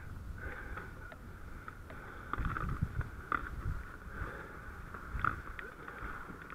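Rope-handling noise: rustling, with scattered short clicks and scrapes as a gloved hand works a rope along an aluminium ladder on a gravel roof. A low rumble of wind runs underneath on a head-mounted microphone.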